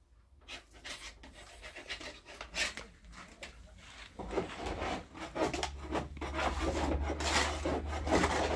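Wood being worked by hand with quick, irregular scraping strokes that grow louder about four seconds in, over a low hum.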